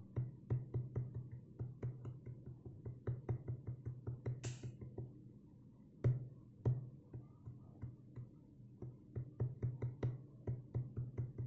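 Fingers tapping the drum pads of a Native Instruments Maschine Mikro Mk3, quick irregular taps each with a faint low drum thud, pausing briefly about halfway through.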